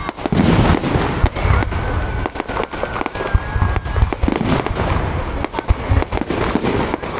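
Fireworks display: aerial shells bursting in a rapid, uneven run of booms and cracks, several overlapping at once. A thin steady high tone rides over them for a couple of seconds near the middle.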